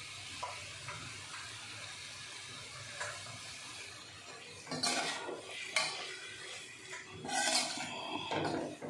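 Perforated metal spatula scraping and knocking against a metal kadhai as a thick potato-and-tomato masala is stirred, in several strokes starting about halfway through.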